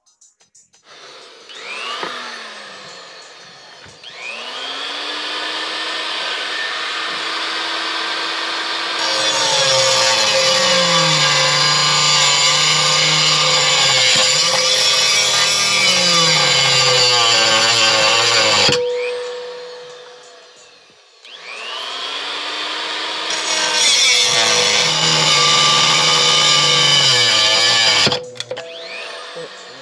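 Handheld rotary tool grinding away the aluminium of a Honda H22 intake manifold while porting it. It spins up, then grinds loudly, its pitch sagging each time the bit bites into the metal and recovering as it eases off. About two-thirds of the way through it winds down, then runs again for a second stretch of grinding that stops near the end.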